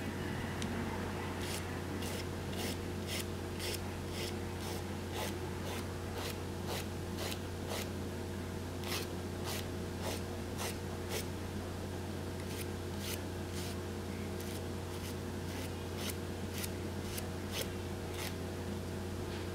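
Nail file rasping across the fingertip edge of nail wraps to take off the excess, in short strokes at about two a second, in runs with brief pauses. A steady low hum runs underneath.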